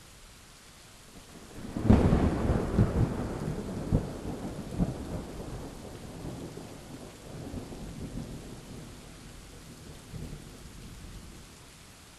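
Steady rain hiss with a thunder clap that breaks sharply about two seconds in, then rolls on in a series of low rumbling cracks that fade away over the next nine seconds.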